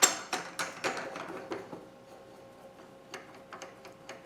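Light metallic clicks and clinks of steel machine tooling being handled: a quick run of them over the first two seconds, then a few scattered taps.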